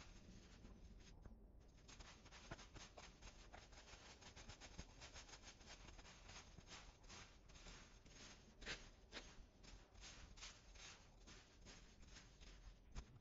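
Faint rustling and scratching of hedge clippings being gathered by hand and scraped together over grass with a leaf rake. The sharpest scrape comes about two-thirds of the way through.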